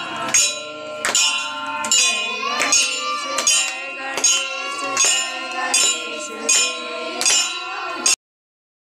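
Hanging brass temple bells rung over and over during aarti, a strike roughly every three-quarters of a second, each left ringing into the next, with women singing and clapping along. The sound cuts off suddenly near the end.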